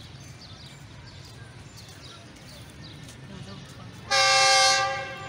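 Air horn of a GE U20 diesel-electric locomotive, one very loud blast about four seconds in, held for about a second and then fading as the train approaches.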